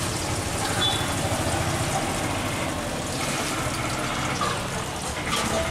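Chicken pakora pieces deep-frying in a wok of hot oil, a steady sizzling hiss.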